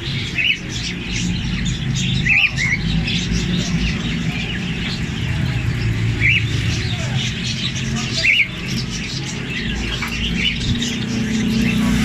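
Many caged birds, budgerigars among them, chirping and chattering steadily. A handful of sharper, louder calls stand out every couple of seconds. A steady low hum runs underneath.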